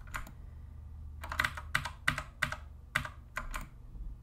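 Computer keyboard keys clicking in an irregular run: a couple of taps at the start, then about nine more from about a second in, over a low steady hum.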